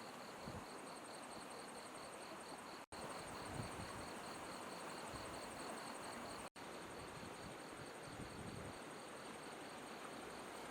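Steady rush of river water with insects chirping in a fast, even pulsing rhythm over it. The sound cuts out for an instant twice.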